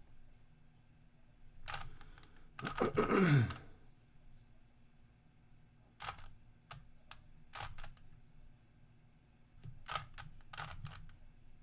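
Plastic Rubik's cube being turned by hand, its layers clicking in short runs of a few turns at a time. About three seconds in comes a louder, longer stretch with a short sound sliding down in pitch.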